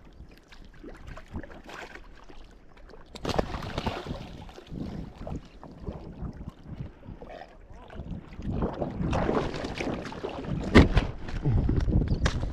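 A brown pelican tangled in fishing line splashing in the water and beating its wings as it is hauled alongside a kayak and grabbed, the splashing and flapping growing louder over the last few seconds. A sharp knock comes about two thirds of the way through.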